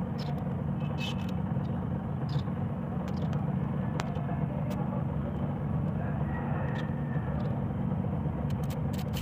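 A steady low rumble, with scattered light clicks and scrapes as hands work potting mix around orchids in a clay pot.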